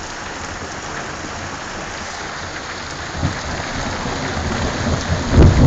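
Heavy rain pouring down steadily. A low rumble of thunder builds from about three seconds in and is loudest near the end.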